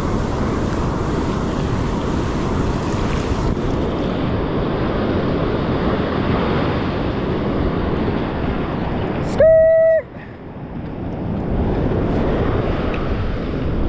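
Steady wind buffeting the microphone over the wash of ocean surf. About nine and a half seconds in, a short loud high tone sounds for about half a second, and the noise then drops briefly before building up again.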